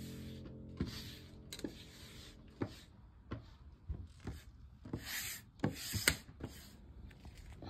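Faint, irregular clicks and taps, roughly one or two a second, with two short bursts of rustling noise about five and six seconds in.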